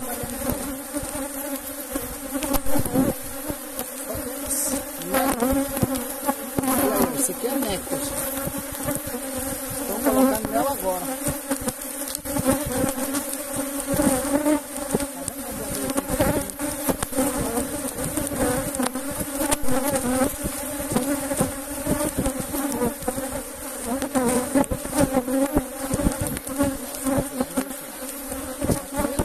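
Honeybees buzzing in a steady, wavering hum around an opened hive, the massed flight of a defensive colony stirred up during inspection.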